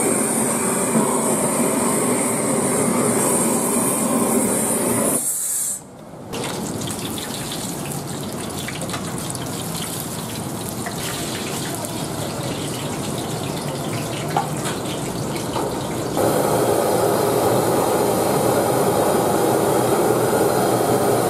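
A handheld gas blowtorch hisses as it singes the hooves and skin of animal legs. About six seconds in, after a short drop, it gives way to oil sizzling as pieces deep-fry in a wok. From about sixteen seconds in, a louder steady noise takes over: a gas burner running under a wok of sauce as it is stirred.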